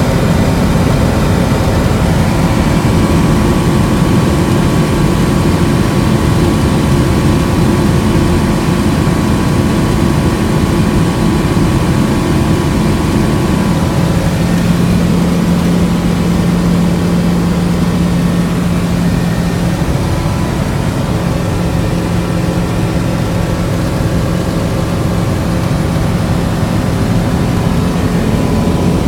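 Tecnam light aircraft's propeller engine running steadily in cruise flight, heard from inside the cockpit with a constant rush of wind. A low hum in the engine note strengthens for several seconds about halfway through.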